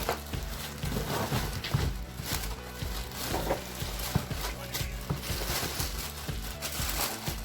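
Background music with a steady low beat, over handling noise: repeated scraping rustles and light bumps of packaging as an aluminium wheel is pulled out of its cardboard box.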